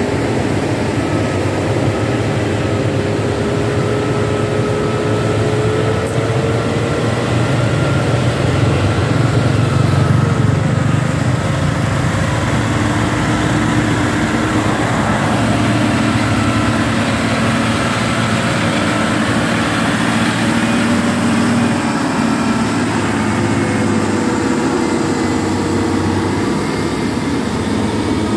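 Hino tanker truck's diesel engine pulling steadily up a steep climb as the truck approaches and passes, its note shifting slowly in pitch and loudest about ten seconds in.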